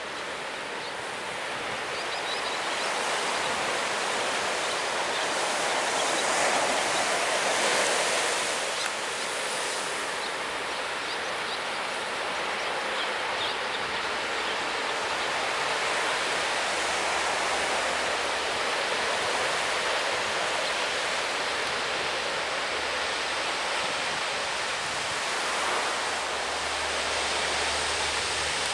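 Lockheed C-130 Hercules' four turboprop engines running on the ground, a steady roar that swells briefly about six to eight seconds in.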